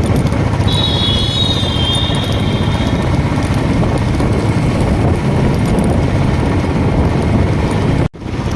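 Riding a motorcycle: steady wind rumble on the microphone mixed with engine and road noise. A high wavering tone sounds for about two seconds starting about a second in, and the sound cuts out for a moment near the end.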